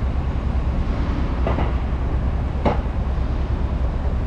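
Steady low rumble of midtown street traffic, with two brief sharp knocks about a second and a half and two and a half seconds in.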